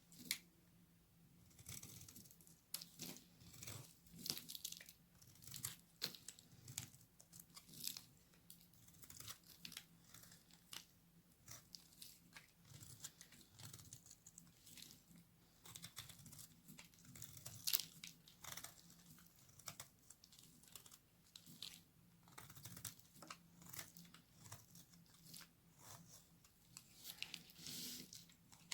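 Very dry bar soap being cut with a knife: a dense, irregular run of small crisp crackles and crunches as it splits and crumbles, with one sharper, louder crack a little past the middle.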